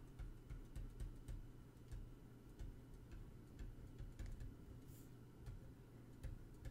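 Faint, irregular ticks and taps of a stylus on a pen tablet as block capitals are handwritten, a few taps a second, over a low steady hum.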